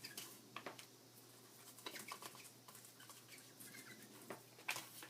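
Foam sponge of an ink blending tool dabbed against paper edges: irregular soft taps with faint squeaks from the new sponge, one sharper tap near the end.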